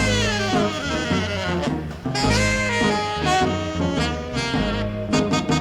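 Background music: upbeat swing jazz led by saxophone and brass over a walking bass line, with a downward-sliding horn phrase near the start and quick repeated horn stabs near the end.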